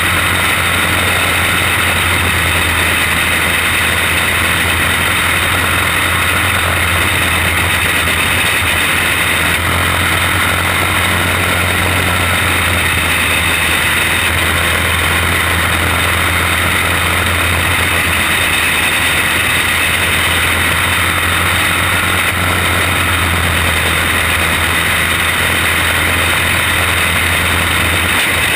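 Onboard sound of a caged racing kart's small engine running hard at speed during a race, a steady, loud drone.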